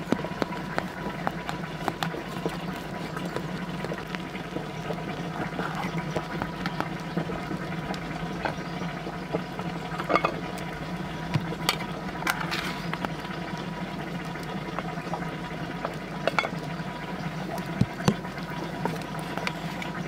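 Metal spatula scraping and clinking against a large metal baking tray as slices of cake are lifted out, scattered sharp clinks among softer scrapes, over a steady low background noise.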